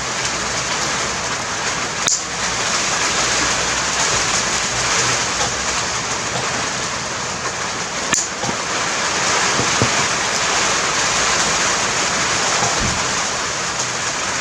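Steady rain from a storm, a loud even hiss, with a couple of faint clicks about two and eight seconds in.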